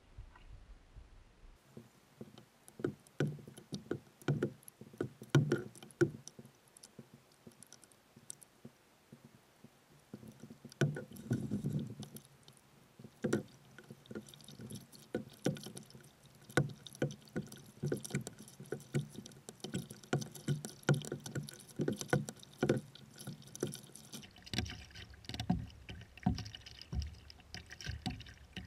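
A canoe being paddled: water sloshing and lapping against the hull, with frequent small knocks and splashes about once or twice a second. A low rumble joins near the end.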